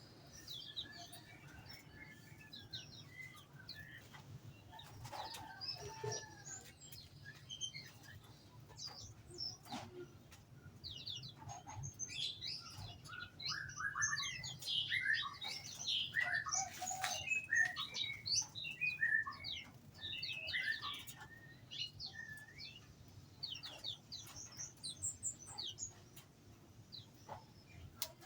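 A flock of small songbirds in an aviary chirping and twittering, many short overlapping calls that grow busiest in the middle, with occasional brief wing flutters and clicks.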